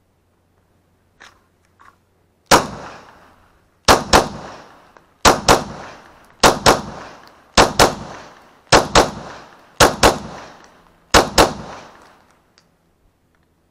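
Glock 20 pistol in 10mm Auto firing about fifteen shots: one, then quick pairs about a second apart, each shot trailing off in echo. A couple of faint clicks come just before the first shot.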